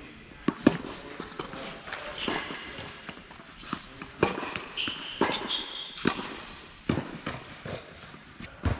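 Tennis balls being struck and bouncing on an indoor hard court: a string of sharp pops and thuds at irregular intervals, some under a second apart.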